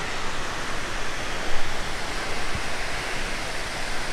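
Steady rush of fast-flowing water, even and unbroken.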